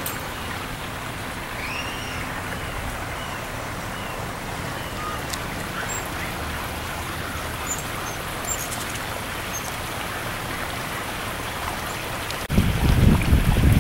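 Steady outdoor hiss with a few faint bird chirps in the first seconds. About a second before the end, gusty wind starts buffeting the microphone in loud, uneven low rumbles.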